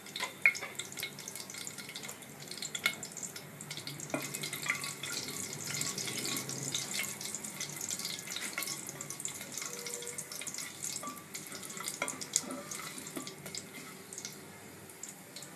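Whole spices sizzling in hot oil in a pan, with a steady hiss and many small crackles and pops.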